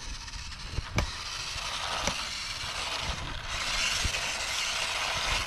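WPL D12 RC kei truck driving flat out on asphalt, its small electric motor and geartrain whirring with tyre noise. The whir grows louder as the truck comes closer, with a couple of short clicks early in the run.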